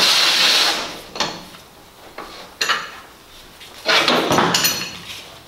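Metal clanks and scraping as a permanent lifting magnet is unhooked from a spreader beam and lifted off a steel sheet. There is a harsh scrape at the start, a few knocks, then a second clattering scrape with metallic ringing about four seconds in.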